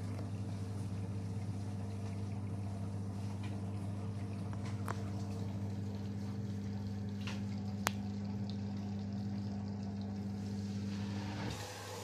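LG WD-80490S front-loading washing machine running a wash, laundry tumbling and water sloshing in the drum over a steady machine hum. There is one sharp click about eight seconds in, and near the end part of the hum stops while a lower hum carries on.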